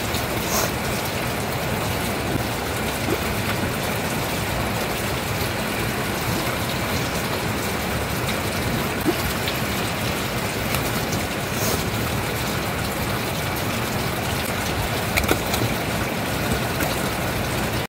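A steady rushing noise, with a few faint taps and clicks as the pots of a raksi still are handled and the joint between them is wrapped.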